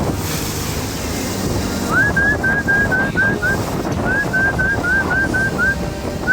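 A bird calling in quick runs of short whistled chirps, each rising then levelling off, about four a second. The first run starts about two seconds in and a second follows after a short pause. Under the calls is a steady low rumble of boat and water noise.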